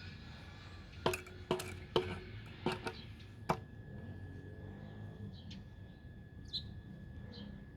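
A handful of sharp clicks and taps, six in the first three and a half seconds, some with a brief ring, followed by faint room noise with a faint steady tone.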